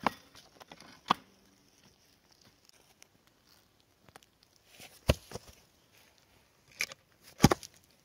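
Scattered sharp knocks and clicks, about six in all, with quiet between them; the loudest comes near the end.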